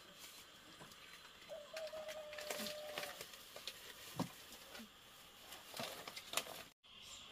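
Quiet farmyard ambience with a bird calling, one steady held note lasting about a second and a half, among scattered light clicks and taps; the sound cuts out briefly near the end.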